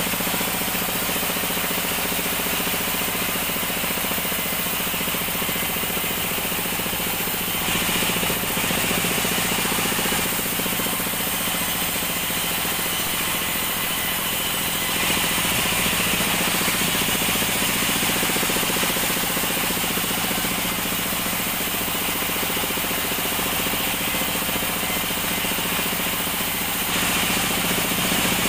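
Large vertical band saw resawing acacia planks: the motor and blade run steadily with the rasp of the cut, growing a little louder at about three points as the blade bites harder into the wood.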